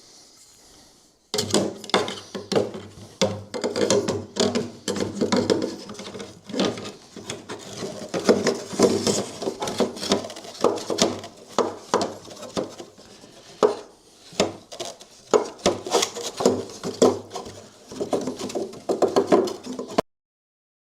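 Hands handling and fitting small metal parts and tools: irregular clinks, knocks and rubbing of parts against each other while a muffler mount is worked into place. The sound starts about a second in and cuts off suddenly near the end.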